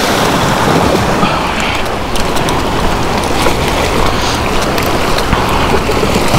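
Ocean swells surging against and washing over the rock jetty, a steady rush of foaming surf, with wind buffeting the microphone.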